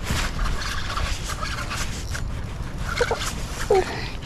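Water splashing and sloshing, with two short pitched cries about three seconds in.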